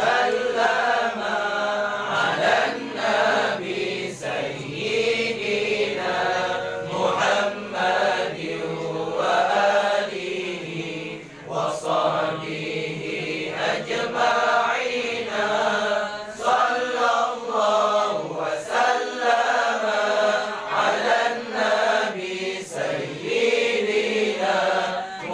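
A group of men chanting Arabic devotional verses (sholawat) together in unison, in sung phrases of a few seconds with short pauses between them.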